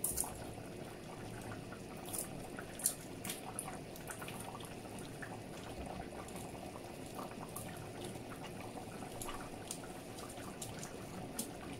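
A pot of stew simmering: a steady, faint bubbling with scattered small pops and clicks.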